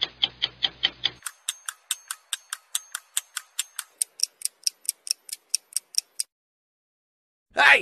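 Fast, even ticking clicks, about five a second, that become higher and brighter about a second in and stop about six seconds in.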